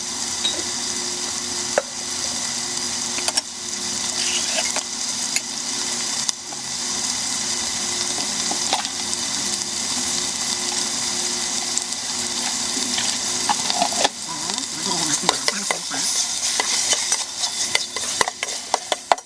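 Chicken fillet pieces and onion sautéing in hot oil in a pan, a steady sizzle with scattered clicks and scrapes of a spatula stirring, busier near the end.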